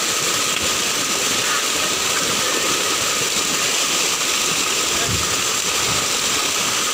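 Steady rushing splash of a mass of fish thrashing and leaping in shallow water inside a hauled-in fishing net.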